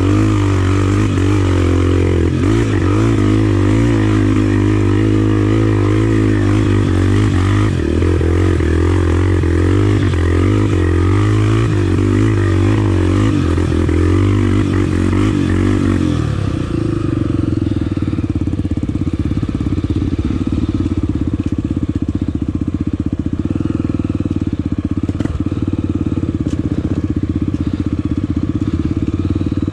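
Single-cylinder engine of a Honda Tornado trail motorcycle running under way, its pitch rising and falling with the throttle. The engine note changes about sixteen seconds in and runs steadier after that.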